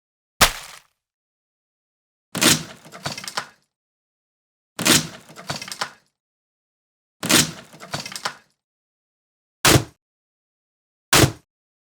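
Axe chopping wood: six sharp strikes, roughly two seconds apart. The middle three each trail into about a second of cracking and splintering wood.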